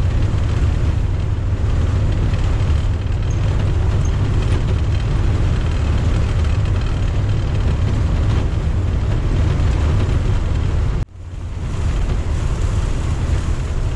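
Inside the cab of a 1990 Fleetwood Bounder Class A motorhome on the move in strong wind: a steady, loud rumble of engine and road noise with wind on the body. The sound drops out briefly about eleven seconds in, then returns.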